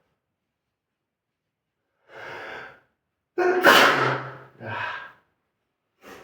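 A person sneezing: a drawn-in 'ah' breath about two seconds in, then one loud, sudden sneeze about three and a half seconds in, followed by a shorter voiced breath out.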